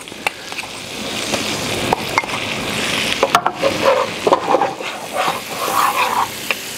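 Rice-flour and butter roux sizzling in a skillet over a low gas flame while it is stirred, a spoon clicking and scraping against the pan. The sizzle grows louder over the first few seconds.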